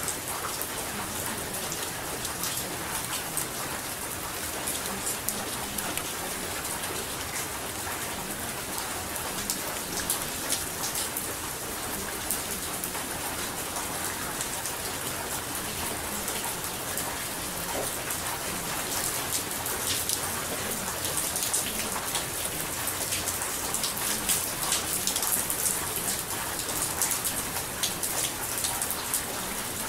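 Steady rain falling on a surface: a constant hiss with many small, sharp drop ticks scattered through it.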